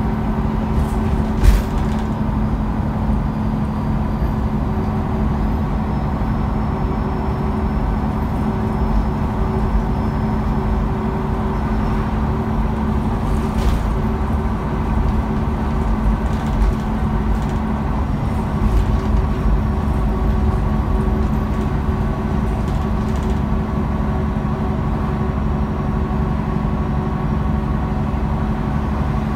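Interior running noise of a MAN A23 articulated city bus under way: steady engine hum and road rumble at an even pitch. There is one sharp knock about a second and a half in, and a few lighter rattles later.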